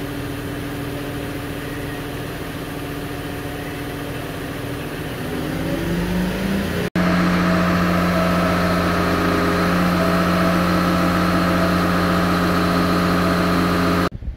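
Mobile crane's diesel engine running, its pitch rising about five seconds in as it speeds up. After a momentary break it runs steady and louder at raised revs while hoisting the drill rig.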